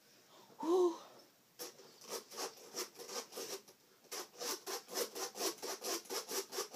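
Quick back-and-forth rubbing or scraping strokes, speeding up to about four a second, as if something is being rubbed against a hard surface. A brief voice sound comes about a second in and is the loudest moment.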